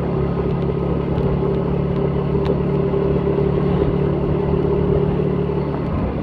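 Motor scooter engine running steadily while riding, with a constant engine hum under road noise.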